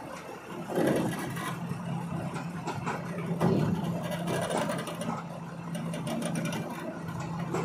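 Kobelco crawler excavator's diesel engine running with a steady hum, swelling louder about a second in and again at about three and a half seconds, as the machine works on the trailer's rear edge.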